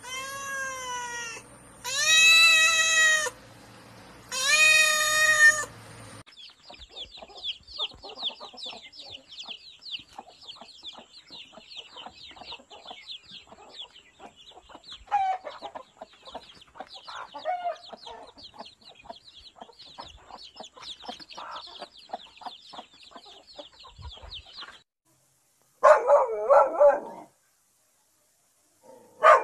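A series of animal calls. First come three long calls, each rising and falling in pitch. Then there are nearly twenty seconds of dense, rapid, high chirping with softer lower calls mixed in, and a short loud call near the end.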